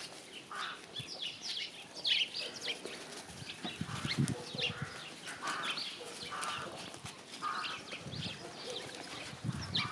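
Small birds chirping repeatedly in short high notes, with rustling and a few dull thumps, loudest about four seconds in and near the end.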